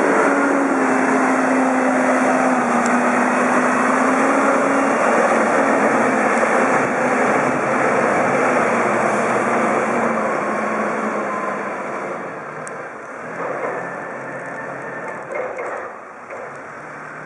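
Clark C45 diesel forklift engine running loud and steady, then fading over the last few seconds as the forklift drives away.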